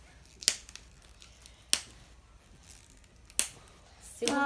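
Three sharp snaps, about a second and a half apart, from the wrapping of a toy surprise ball being unwrapped by hand. A voice starts near the end.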